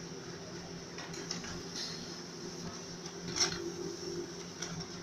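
Canon imageRUNNER 1133iF laser copier running a copy job: a steady mechanical hum with a few short clicks, the strongest about three and a half seconds in.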